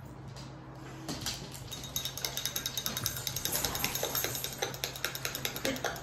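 A stirrer rattling quickly around a glass of coffee, a fast run of sharp clicks against the glass that starts about a second in and grows louder.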